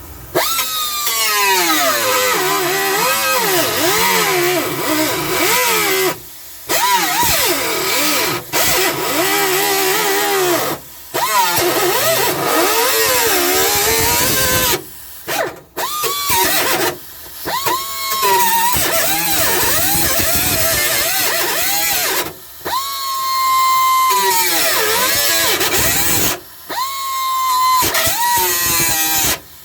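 Power cutting tool slicing through the sheet-metal floor pan along the cab support. Its whine sags in pitch each time it bites into the metal and recovers as it eases off. The tool stops and starts again about eight times.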